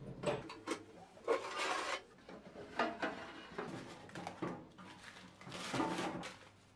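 A rusty steel machinist's tool box being handled: clicks and knocks from its metal latch, front cover and drawers, with two longer scraping, rustling stretches, the second as the old newspaper drawer lining is lifted out.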